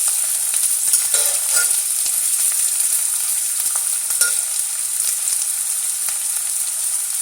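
Finely chopped onions frying in hot oil in a kadai, a steady sizzle while they are stirred toward golden brown, with a few short clicks of the stirring utensil against the pan.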